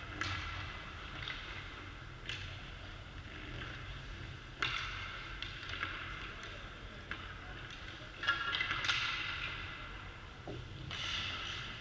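Ice hockey skate blades scraping and carving across the rink ice in a string of swishes, several of them starting with a sharp crack, over a steady low hum.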